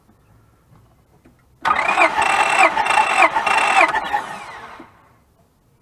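Starter cranking the 2004 Honda Pilot's V6 for about three seconds, its pitch dipping and recovering three times at an even beat, then winding down near the end. The engine is being cranked during a misfire and compression diagnosis.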